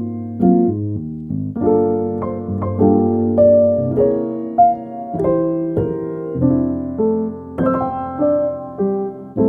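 Lo-fi piano music: soft chords and a melody played note by note, each note fading.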